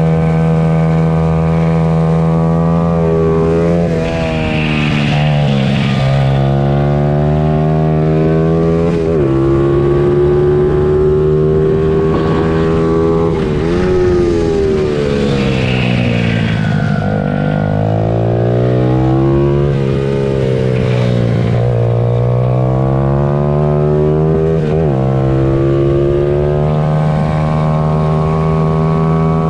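Small-capacity pit bike engines racing, their note climbing and falling with throttle, broken by sudden steps in pitch at gear changes, with a deeper dip and climb back up about halfway through.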